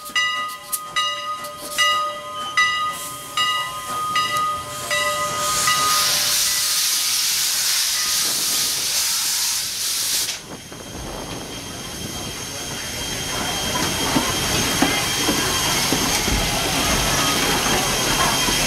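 Grade-crossing bell ringing at a steady rate of about one strike every half-second or so, fading over the first five seconds, as the 1910-built 2-6-0 steam locomotive hisses. The hiss swells and then cuts off about ten seconds in. It gives way to the steady rumble and clatter of the train rolling along the track, which grows slightly louder.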